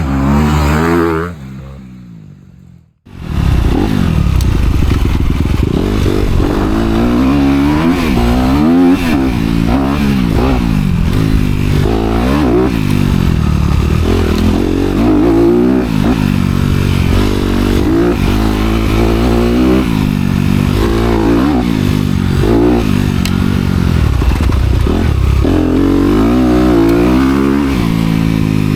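Honda CRF250R's single-cylinder four-stroke engine with dual exhausts, revving up and down repeatedly as the dirt bike is ridden. The sound drops away about a second in and comes back about three seconds in.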